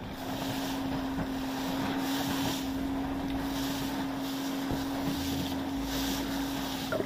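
Boat engine running steadily at speed with a constant hum, over rushing water and spray from the wake and wind noise on the microphone.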